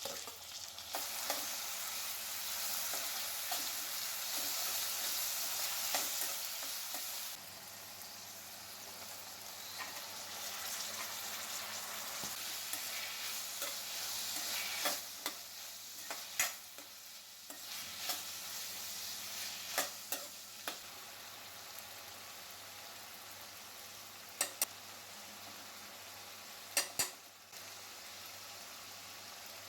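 Food sizzling in hot oil in a pan while being stirred, with a spatula clicking against the pan now and then. The sizzle is loudest for the first seven seconds or so, then drops to a lower, steady frying hiss.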